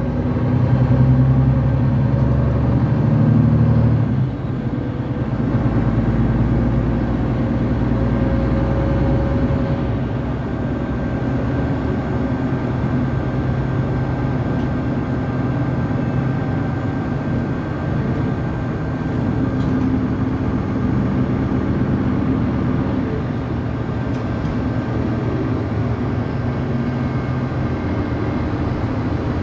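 Inside a moving articulated Mercedes-Benz city bus: the engine and drivetrain run with a steady low drone under tyre and road noise. The engine note changes about four seconds in.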